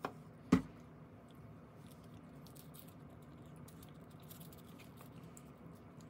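A faint click, then a single sharp knock about half a second in, followed by quiet room tone with faint scattered small ticks.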